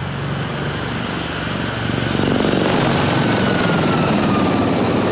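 Gazelle helicopter flying, its turbine and rotor noise growing louder about two seconds in, with a high whine that slowly falls in pitch as it passes.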